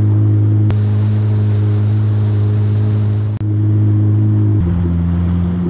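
Yamaha FX Cruiser HO WaveRunner's four-stroke engine running steadily under way, heard from on board. The note breaks briefly twice and drops to a lower pitch about two-thirds of the way through.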